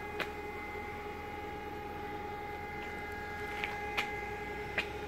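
A steady pitched hum with several overtones, broken by a few short sharp chirps or clicks, one near the start and three in the last second and a half.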